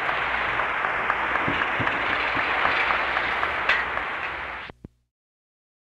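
Audience applauding, a dense patter of many hands clapping, cut off abruptly after about four and a half seconds.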